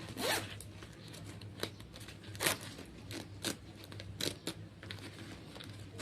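A parcel's packaging being opened by hand: about six short rasping strokes of cutting or tearing, the first a little longer, over a faint low hum.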